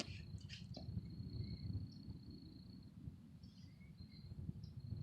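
Outdoor ambience: an insect trilling steadily on one high pitch, fading about halfway through and coming back near the end, with a few short chirps, over a low fluttering rumble.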